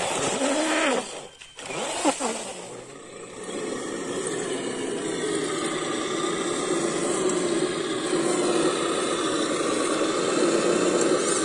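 Electric motor and gearbox whine of a radio-controlled scale rock crawler. The pitch rises and falls with the throttle in the first couple of seconds, then holds steady as the crawler climbs rock.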